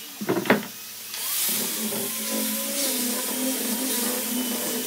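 A few sharp knocks about half a second in as the heavy wooden slab is handled on the bench. Then, about a second in, an angle grinder with a sanding disc starts and runs steadily, sanding the face of the wood.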